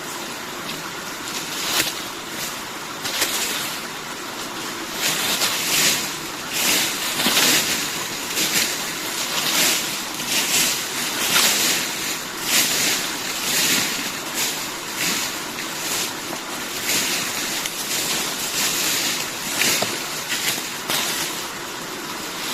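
Dry forest leaf litter rustling and scraping in repeated sweeping strokes, about one every half second to second, as the ground is cleared of leaves.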